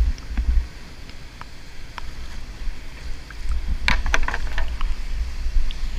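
Steady rush of a large whitewater rapid in high water, with low wind rumble on the microphone that swells in places and a few small clicks and knocks about four seconds in.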